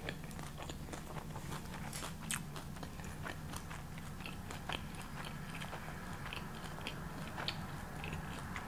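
A person chewing a mouthful of fried avocado egg roll: irregular small crunches and mouth clicks, over a steady low hum.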